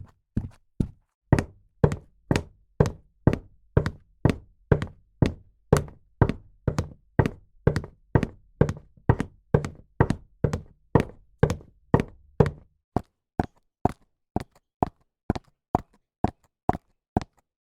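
High-heeled shoes walking at a steady pace, each heel strike a sharp click, about two steps a second. A faint low hum under the steps stops about two-thirds of the way in, and the steps carry on slightly quieter.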